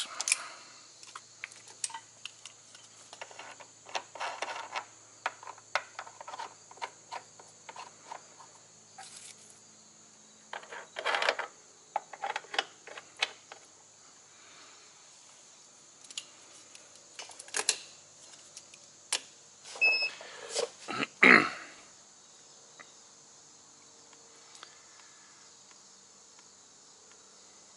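Clicks and rustles of a handheld battery tester's clamp leads being handled and clipped onto truck battery terminals, quiet and irregular, with a short beep from the tester about twenty seconds in. A faint steady high hiss sits underneath.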